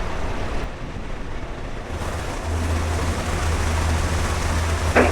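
Tecnam light aircraft's propeller engine running at taxi power, a low steady drone that comes up about two seconds in, under a haze of wind-like rushing noise.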